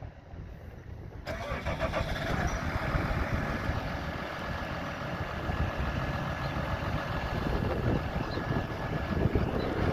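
Case IH Magnum 180 tractor's six-cylinder diesel engine starting about a second in, then idling steadily with a faint high whine over it.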